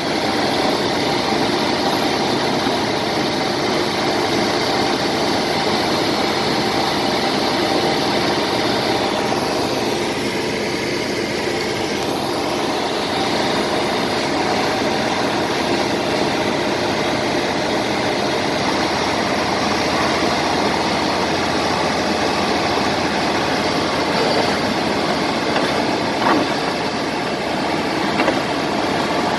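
Diesel engines of D70LE crawler bulldozers running steadily.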